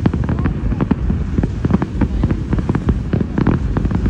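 Fireworks going off in quick succession: a dense run of bangs and crackles, several a second, over a steady low rumble.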